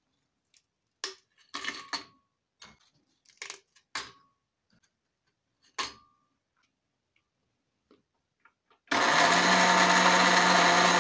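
Vanilla cookies dropped one by one into a glass blender jar, each landing with a short knock or clink, a few with a brief glassy ring. About nine seconds in, the blender motor starts and runs steadily at one pitch, grinding the cookies into crumbs.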